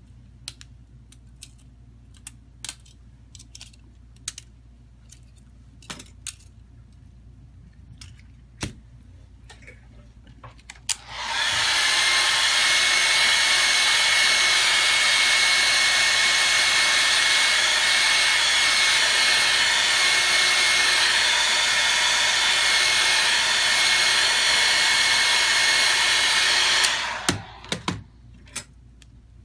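Light clicks and taps of small parts and tools being handled, then about 11 seconds in a hot-air blower switches on and runs steadily with a whine for about 16 seconds, heating the phone's cracked screen to soften its adhesive, before cutting off; a few clicks follow.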